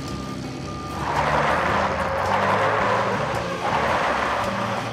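Heavy truck tyres churning through loose dirt and gravel, a loud gritty rush that starts about a second in and carries on, with a short dip near the middle. A reversing beeper sounds briefly at the very start, over a low music bed.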